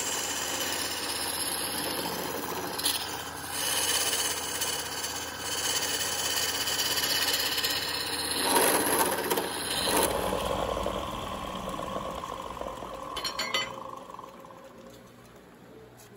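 Wood lathe running while a fistful of wood shavings is pressed against the spinning wooden spindle, a steady rubbing hiss over the motor's hum, burnishing the turned wood. The sound changes about ten seconds in and fades away near the end.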